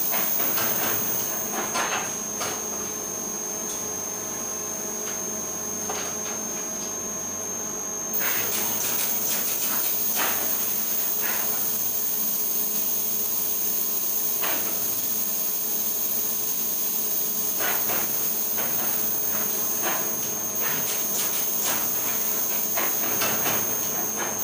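Screen printing machine running under a steady high-pitched whine and hum, with scattered clicks and knocks from the print-head carriage and from handling. A hiss comes up and the noise gets louder about eight seconds in.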